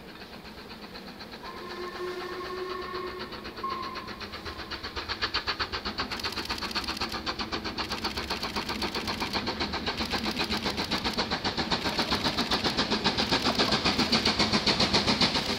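Black 5 steam locomotive No 45212 whistling, a long blast then a short one, then working toward the listener with rapid, even exhaust beats of about five a second that grow steadily louder as it draws near.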